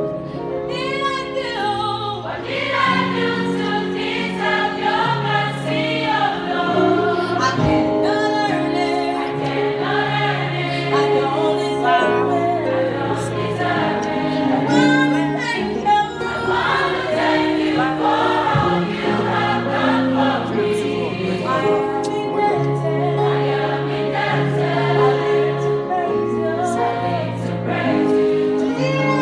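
Music with a choir of voices singing over held bass notes.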